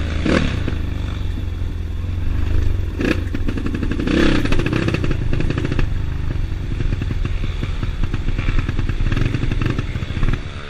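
Trail motorcycle engine running as it rides along, with frequent knocks and rattles and a few louder knocks around three and four seconds in.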